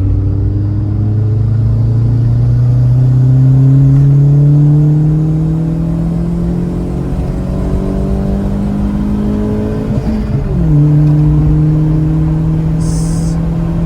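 Turbocharged 1.0 VW Gol G6 engine heard from inside the car, pulling hard with its pitch climbing slowly, then a quick dip about ten seconds in as a gear change before it holds steady. A short hiss near the end.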